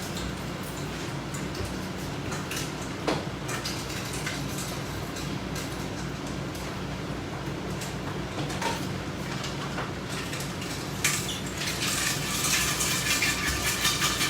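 Metal exercise equipment being handled: scattered clinks and knocks, then a longer clattering rattle from about eleven seconds in, over a steady low room hum.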